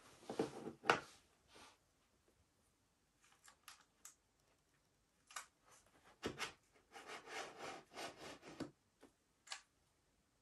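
Saddle and seatpost being fitted into an electric bike's frame by hand: scattered small clicks and knocks, with a stretch of rubbing and scraping about seven to nine seconds in.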